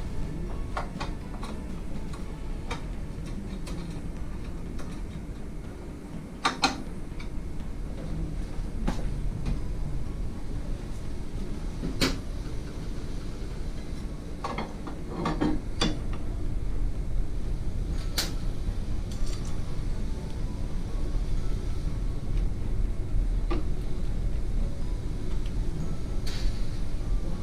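Scattered clicks and knocks of metal meat-slicer parts being handled during disassembly, over a steady low background rumble.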